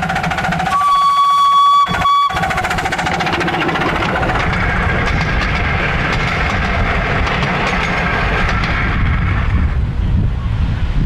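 Ride-on miniature locomotive passing close by, sounding its whistle: one long blast of about a second and a short second blast. Its running rumble continues as it passes.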